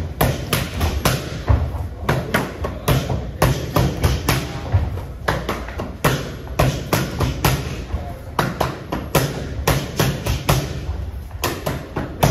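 Boxing gloves striking focus mitts in quick combinations: a run of sharp thuds, often in bursts of two to four, with short breaks between.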